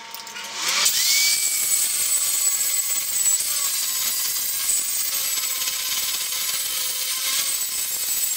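Handheld angle grinder spinning up about a second in, then grinding steadily against rusty half-inch steel plate to take off the rust, a high-pitched whine over the grinding noise.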